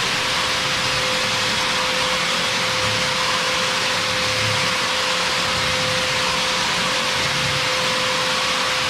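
Rokamat Heron long-neck wall and ceiling sander running steadily with its dust extraction: an even hiss with a constant hum.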